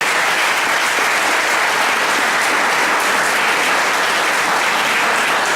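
Audience clapping, a dense steady applause that holds at full strength throughout.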